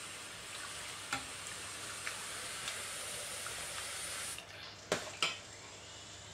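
Metal ladle stirring cold lemon iced tea in a stainless steel bowl: the liquid swishes steadily, with a few light clinks of the ladle on the bowl and two sharper clinks about five seconds in, after which the swishing dies down.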